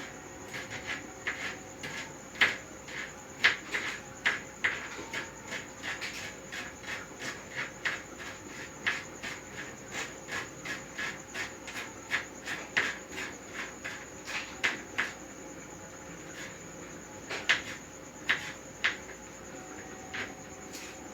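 Knife chopping on a cutting board, a run of sharp knocks about two to three a second that stops about 15 seconds in, with a few more knocks a couple of seconds later. A steady high-pitched whine sounds underneath.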